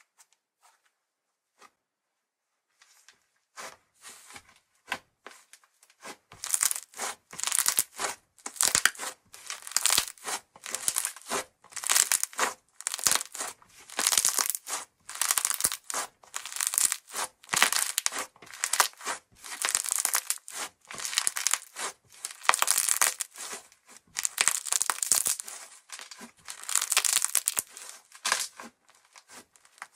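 Fluffy white slime being squeezed and stretched by hand, giving a crisp crackling, tearing sound in repeated strokes about once a second. The first three seconds are almost silent.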